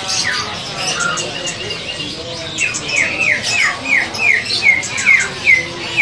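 Many caged songbirds chirping together. About halfway in, one bird starts a run of loud falling whistled notes, about three a second.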